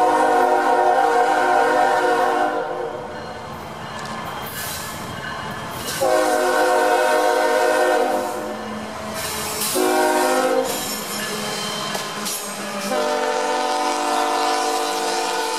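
Freight locomotive's multi-chime air horn, a Nathan K5HL, sounding the grade-crossing signal of long, long, short, long, the last blast still going at the end. Beneath it is the rumble of the passing train.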